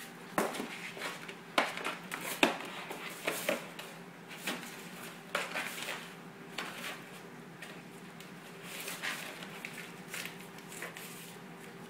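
A cat rustling and crinkling a torn cardboard tea-bag box and paper tea-bag envelopes, in irregular sharp crackles that thin out after about six seconds.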